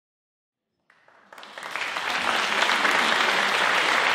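Audience applauding, fading in about a second in and rising to steady clapping by many hands.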